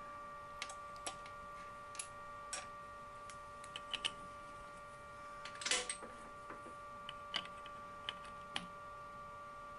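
Thiel Duplex 158 milling machine running with a steady whine, with scattered light clicks and a short clatter of handling about six seconds in.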